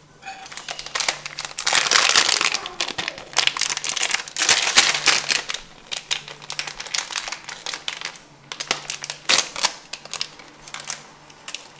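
A crumpled foil wrapper being handled and crushed, crinkling in irregular bursts, loudest over the first few seconds and again briefly near the end.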